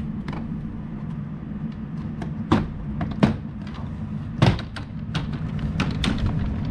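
Plastic clips snapping loose as a Tesla Model Y's frunk trim panel is pulled up by hand: a few separate sharp clicks and knocks, the loudest about two and a half, three and four and a half seconds in, over a steady low hum.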